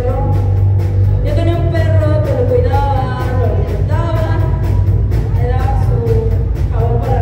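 Live rock band playing: a woman sings lead over electric guitar, bass guitar and a drum kit, with a heavy, steady bass and a regular drum beat.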